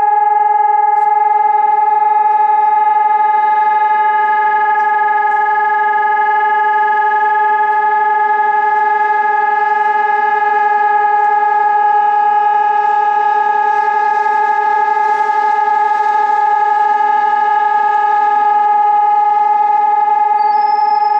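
Civil-defence warning siren sounding one loud, steady, unbroken tone, the continuous test tone of the Czech public warning system. It marks a scheduled test of the city's alarm system, not a real alert.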